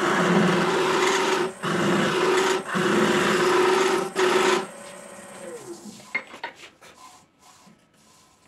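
Lathe tool cutting inside a spinning hollow wooden workpiece: a steady scraping hiss over the lathe's hum, broken by two short pauses. The cutting stops about four and a half seconds in, the hum falls away as the lathe winds down, and a few light knocks follow as the stopped workpiece is handled.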